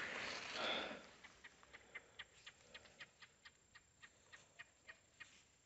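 A brief rustle of fingers handling a small dug-up coin and soil, then faint, even clicks about four times a second.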